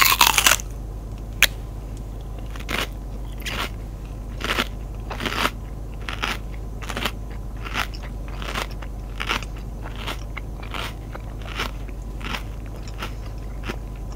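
A person biting into a cream-cheese bagel, the loudest moment right at the start. Then steady, regular chewing follows, a little more than one chew a second.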